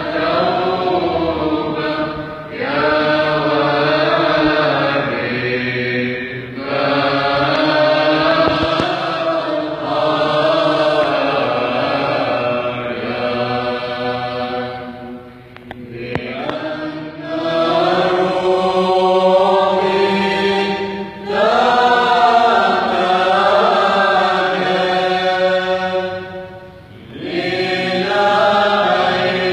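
Orthodox church choir chanting a hymn in long sustained phrases, the voices dropping away briefly between phrases for breath.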